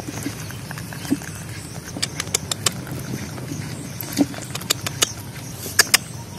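Rooster pecking ripe mango pulp from an open hand: irregular sharp pecking clicks, some coming in quick runs of several.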